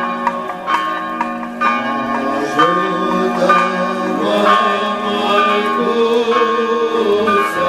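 Monastery church bells ringing in a busy peal, struck again and again. Men's voices chanting join in about two and a half seconds in.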